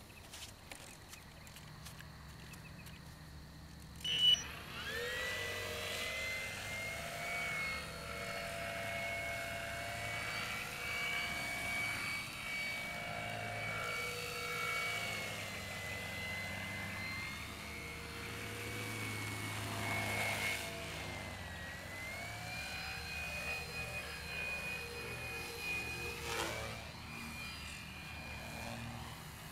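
Electric RC airplane's brushless outrunner motor turning a 12x6 propeller. After a few faint seconds and a sharp knock about four seconds in, the motor spools up into a steady high whine that shifts up and down with throttle as the plane flies, its pitch sweeping near the end as the plane passes.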